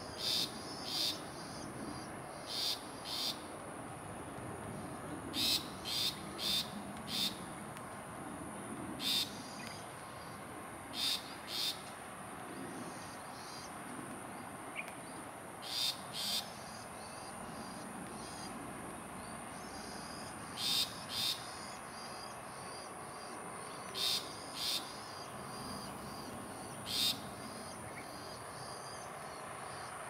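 Long-tailed shrike giving short, rough, gruff calls, mostly in quick pairs with pauses of a few seconds between, over a steady high-pitched insect drone.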